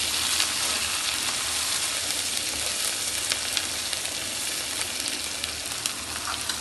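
Finely chopped onion sautéing in hot ghee in a nonstick wok, sizzling steadily, with scattered scrapes and ticks of a steel spoon stirring it. The sizzle slowly softens.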